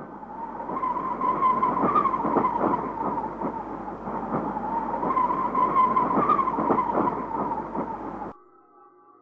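A loud, harsh screeching noise whose pitch wavers, with crackles running through it; it cuts off suddenly about eight seconds in, leaving faint music.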